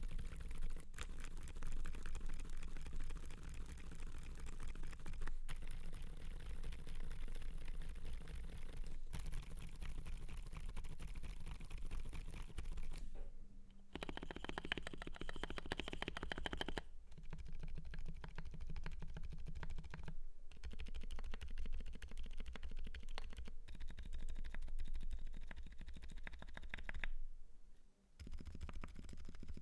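Continuous typing on an FL.eSports FL980 mechanical keyboard with lubed Gazzew Boba U4 silent tactile switches and Akko ASA keycaps: a dense, steady run of keystrokes, pausing briefly three times.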